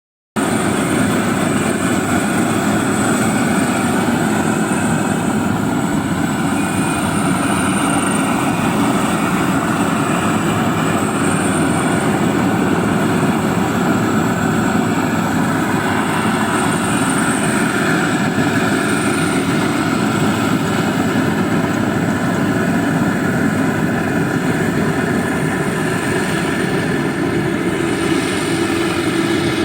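Heavy farm machinery running steadily under load: a continuous engine and mechanical din with a faint high whine.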